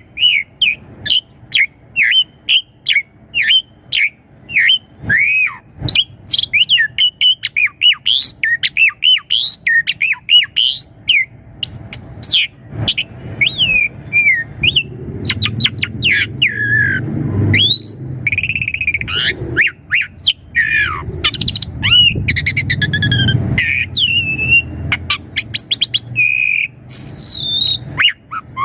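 Asian pied starling (jalak suren) singing a fast, varied song of slurred whistles and chirps, turning harsher and rasping from about halfway through.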